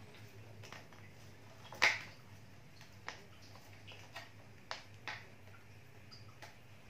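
Irregular sharp clicks and taps of a plastic drink-bottle filter and a hose being handled while the hose is tied onto the bottle's neck, the loudest about two seconds in, over a faint low hum.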